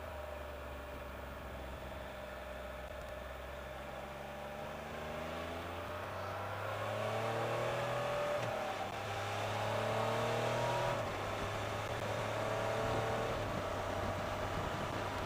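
Can-Am Spyder RT three-wheeled motorcycle's engine pulling away, its pitch climbing through the gears with two upshifts in the second half.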